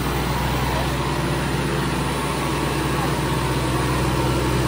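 Two 55 hp tractor diesel engines, a Kubota and a John Deere, running steadily under heavy load while pulling against each other in a tug-of-war; the red tractor's front wheels are lifted off the ground by the strain.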